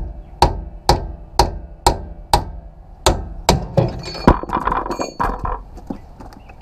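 Hammer blows on the differential carrier of a GM 12-bolt rear axle, about two a second, knocking the carrier loose from the axle housing. After about eight strikes they give way to a clatter of metal clinks and ringing as the carrier comes free.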